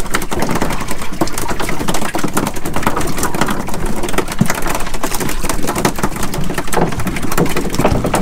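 Wind buffeting the microphone: a steady, crackling rush of noise.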